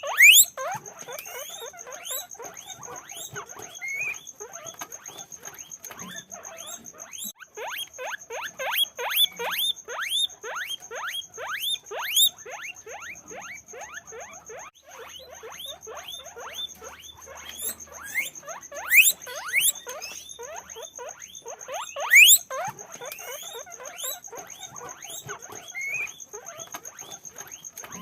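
Guinea pigs squeaking continuously: a dense run of short rising squeaks, several a second, overlapping at different pitches, with a few louder squeals. A faint steady high-pitched tone runs underneath.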